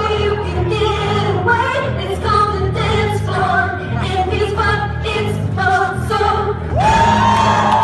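Music with singing over a steady beat; about a second before the end a long high note glides up and is held.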